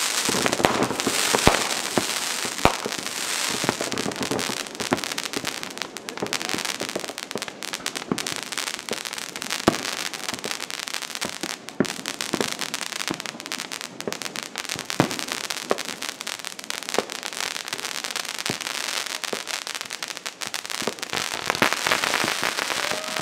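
Consumer fireworks going off in a continuous crackle of small pops, with scattered louder bangs.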